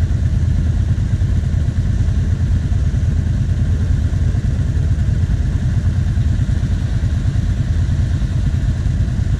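ATV engines idling while the quads stand still: a steady low engine rumble with no revving.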